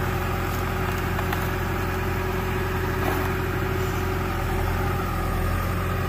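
Diesel engine of heavy logging equipment running steadily at idle.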